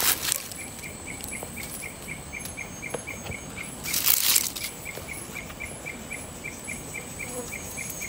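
An insect chirping steadily, short high chirps about four a second. A brief rustle of dry leaves comes about four seconds in.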